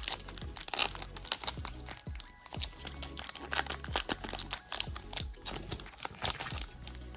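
A foil Pokémon booster pack wrapper crinkling and crackling in the hands as it is opened, in many quick, irregular crackles. Background music with a low bass runs underneath.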